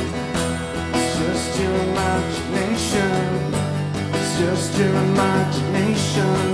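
Steel-string acoustic guitar strummed in a steady rhythm, with a man's voice singing over it.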